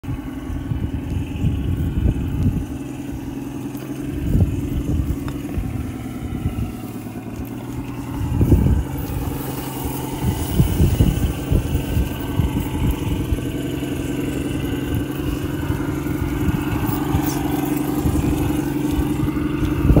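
Radio-controlled scale crawler's electric motor and gearbox whining steadily while it crawls through a shallow rocky water crossing, rising slightly in pitch near the end. Low knocks and rumbles come through now and then, the largest about halfway through.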